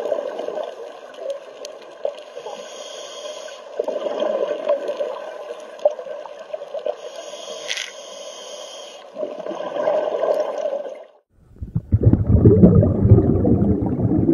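Scuba diver breathing through a regulator underwater: a hiss on each inhale, then a gurgle of exhaled bubbles, about one breath every five seconds. Near the end this gives way to a loud low rumble.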